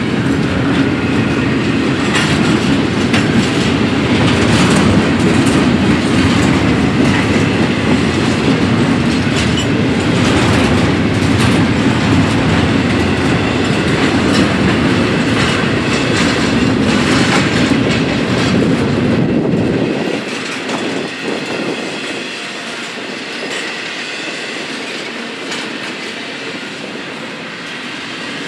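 Double-stack intermodal train's container well cars rolling past at a grade crossing: a steady loud rumble with wheels clicking over the rails. About two-thirds of the way through, the deep rumble drops away suddenly and the passing cars sound lighter and quieter.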